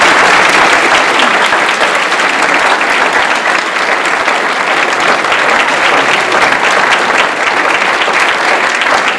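A large audience applauding, steady and full, easing slightly toward the end.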